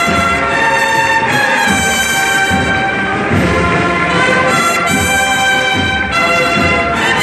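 Cornet-and-drum band (banda de cornetas y tambores) playing a Holy Week processional march: held brass chords that change every second or two, with drums underneath.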